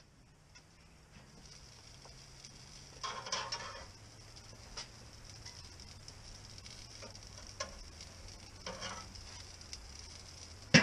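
Faint steady sizzling from food on a charcoal grill, with metal tongs scraping and clicking on the grate as grilled zucchini sticks are lifted off. A brief louder rasp comes about three seconds in, and a few sharp clicks follow.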